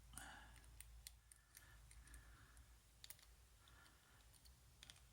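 Faint, scattered metallic clicks of a homemade hacksaw-blade lock pick being jiggled in a Master Lock padlock's keyway, working at the stiff front pins.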